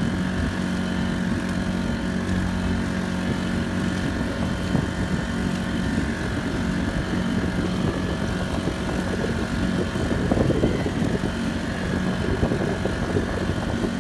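Honda GX35 35cc single-cylinder four-stroke engine driving a small pontoon boat, running at a steady cruising speed, with waves splashing against the hulls, loudest about ten seconds in.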